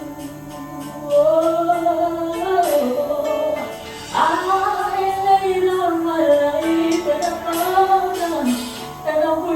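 Worship song: a woman sings long, gliding held notes over a steady accompaniment.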